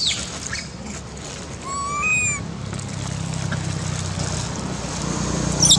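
A young macaque gives one short, high, whistle-like call about two seconds in, rising then falling in pitch. A steady low drone builds up underneath in the second half.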